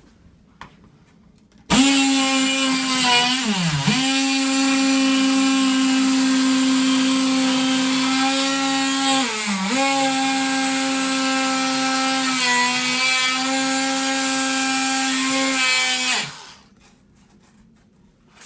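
Ryobi oscillating multi-tool cutting through an acrylic sheet: a steady high buzz starts about two seconds in, drops in pitch twice as the blade bites and loads, and stops a couple of seconds before the end.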